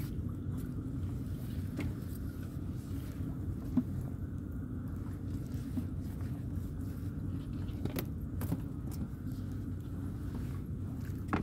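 Tamban gill net being hauled by hand over the side of a small boat, with scattered clicks and knocks, over a steady low rumble.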